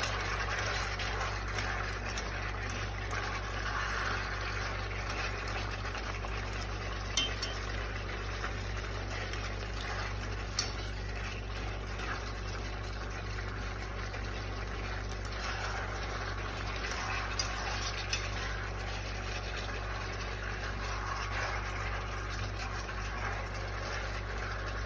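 Chicken pieces sizzling and bubbling in a hot pot with a splash of rice wine as they are stirred, with a few light clinks of the utensil against the pot and a steady low hum underneath.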